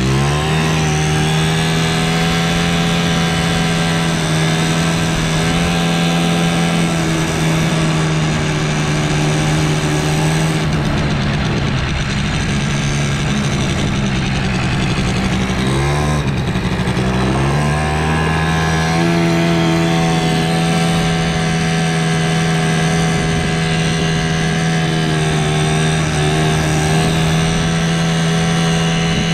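Polaris Sportsman 90's 90cc two-stroke engine pulling the quad along, running on its freshly cleaned and reinstalled original Mikuni carburetor. The revs rise right at the start and hold steady, then drop briefly about halfway through and pick back up.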